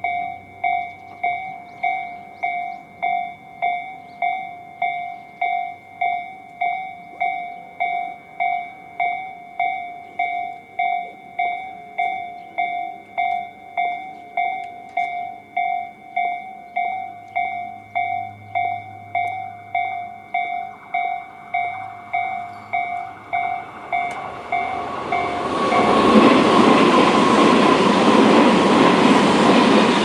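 Japanese electronic level-crossing alarm of the Tobu 'sound C' type, slow-tempo version, ringing evenly at about three strokes every two seconds. About 25 seconds in, a Tobu 100 series Spacia limited express train passes over the crossing, and its loud running noise covers the alarm.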